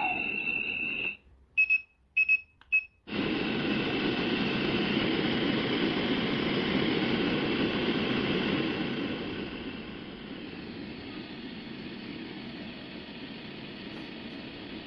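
A steady electronic beep tone over a rushing noise stops about a second in and is followed by four short beeps on the same pitch. From about three seconds in a steady rushing noise plays, easing to a lower level after about ten seconds.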